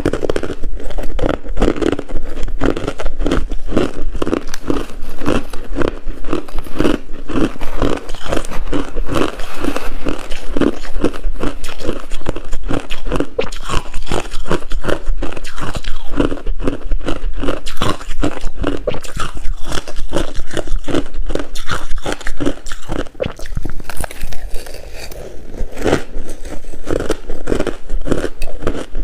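Coarse-grained crushed ice being bitten and chewed close to the microphone, a dense run of crisp, rapid crunches that eases briefly near the end.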